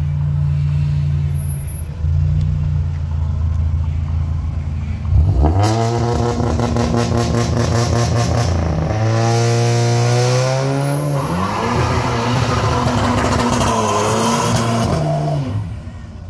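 VW Golf GTI's turbocharged four-cylinder idling, then revved hard about five seconds in and held high with a rapid, even stutter, like a rev limiter or launch control. It then launches away, the engine note dipping and climbing, with a high whistle over it.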